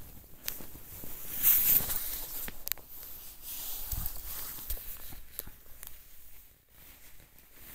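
Handling noise from a pourer being worked into a wine bottle's neck: light scrapes and scattered clicks, with a brief hissing rustle about one and a half seconds in and a low thud near four seconds.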